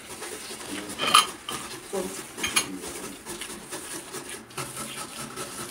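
Hands kneading moist bulgur in a stainless steel bowl, with irregular knocks and clinks from the metal bowl, the sharpest about a second in.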